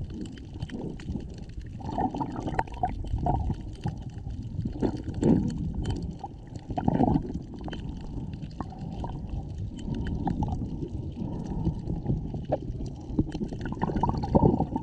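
Water sloshing and gurgling heard from underwater, dull and muffled, swelling in several surges with the loudest near the end.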